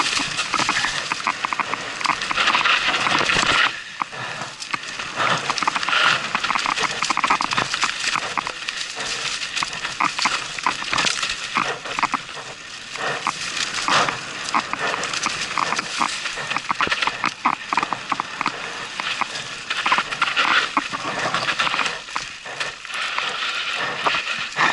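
Canyon Strive enduro mountain bike clattering and rattling down a rough dirt singletrack: a constant run of irregular knocks from chain, frame and tyres going over roots and stones, over tyre and wind noise.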